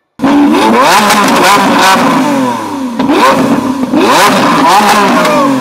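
Lamborghini Aventador V12 engine revved hard several times, its pitch sweeping up and dropping back, with sharp cracks from the exhaust between the revs.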